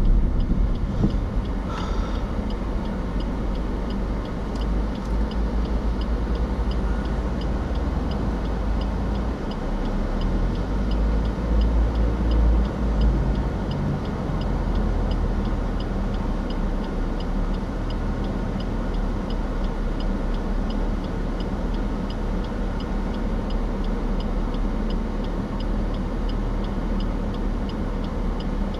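Car waiting at a junction, its engine and cabin giving a steady low rumble, while the turn-signal indicator ticks evenly about one and a half times a second.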